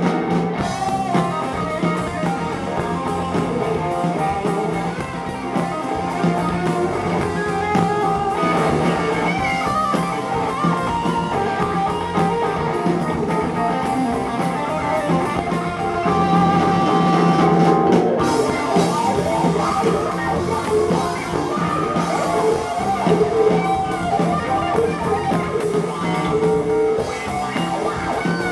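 Live rock band playing a guitar-driven passage on electric guitars, bass guitar and drum kit.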